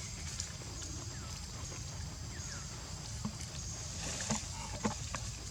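Outdoor ambience: a steady high-pitched drone over a low rumble, with a few short chirps and scattered clicks.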